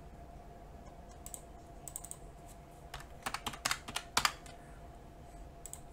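Computer keyboard keys being typed: a few scattered taps, then a quick run of keystrokes about three seconds in, as a number is entered.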